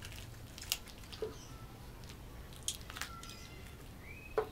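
Faint, scattered wet squelches and clicks of boiled goat-head meat being pulled off the skull by hand.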